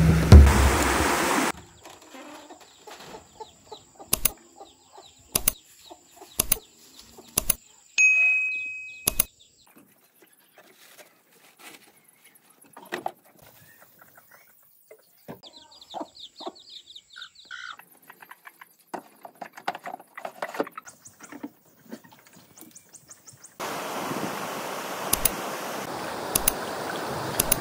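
Several sharp knocks in a quiet yard, then a chicken clucking and flapping. About three-quarters through, the steady rush of a shallow rocky river takes over as it is waded.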